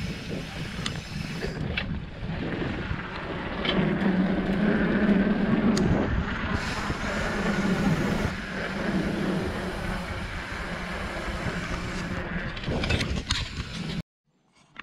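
Mountain bike being ridden along a trail: wind rushing over the microphone and the tyres rumbling, with scattered knocks from bumps. It cuts off suddenly near the end.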